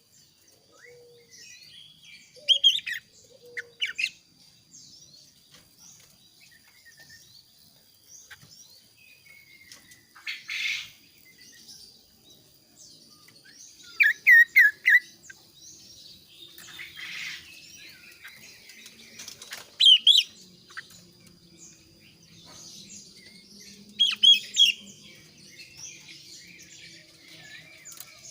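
Male kaso-kaso bird singing in short bursts of rapid, clear chirps, five or so phrases separated by pauses. A faint steady high-pitched tone runs underneath.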